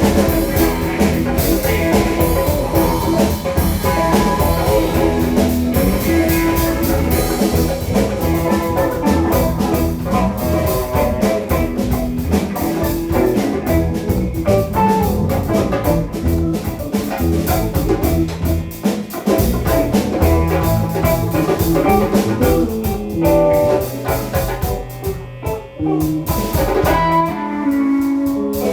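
Live band playing a blues-rock groove on electric guitar, bass and drum kit. Near the end the drums drop out for a moment, then come back in.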